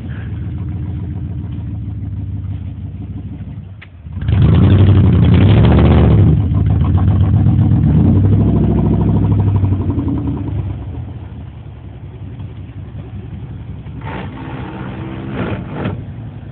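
Chevrolet pickup truck engine running off-road, with a loud surge of hard revving about four seconds in that rises and falls in pitch and eases off after about ten seconds.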